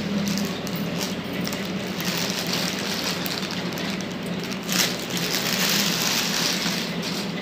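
Clear plastic packaging crinkling and rustling as it is handled around a folded sequined saree, with a sharper crackle just under five seconds in. A steady low hum runs underneath.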